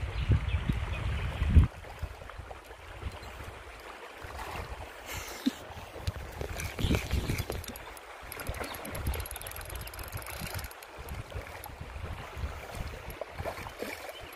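Water sloshing and splashing as a German wirehaired pointer swims and wades through a shallow river, over the faint running of the stream. A low rumble on the microphone stops about a second and a half in.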